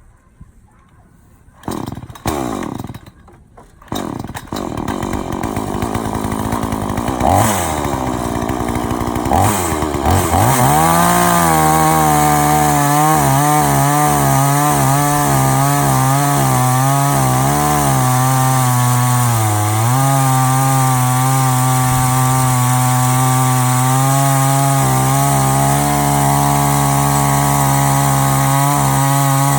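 A Blue Max 57.2 cc two-stroke chainsaw being started: a couple of short loud pulls, then the engine catches about four seconds in and revs up. From about ten seconds in it runs steadily at high speed, its pitch wavering slightly.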